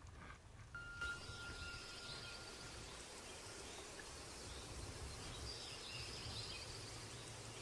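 Underwater ambience picked up by a camera in its waterproof housing: a steady low rumble of water movement under a faint hiss, with a thin steady tone for about two seconds near the start.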